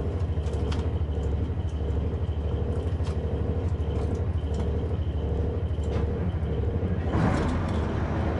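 Steady low drone of the boat's generator running, pulsing about twice a second, with scattered small clicks. About seven seconds in, a 12-litre Detroit diesel main engine starts and adds a louder, fuller rumble.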